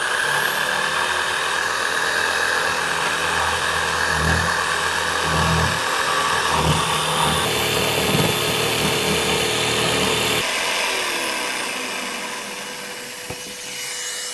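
DeWalt DW331 corded jigsaw cutting through a board, its motor running steadily under load with a dust extractor drawing through its hose. About ten seconds in the saw is switched off and its whine falls away as the motor winds down, leaving the extractor's steady hum.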